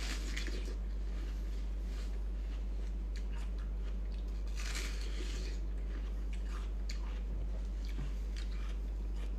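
A person biting and chewing watermelon, gnawing the red flesh off down to the rind in short, scattered bites, with a denser run of bites about five seconds in. A steady low hum sits underneath throughout.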